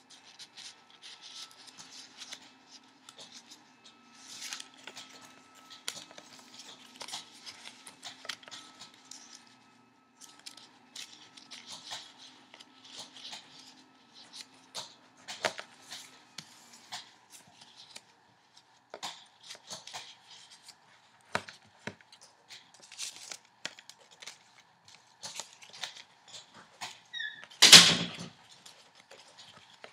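A sheet of white paper being folded and creased by hand: irregular crisp rustles and crinkles, with one much louder crackle about two seconds before the end.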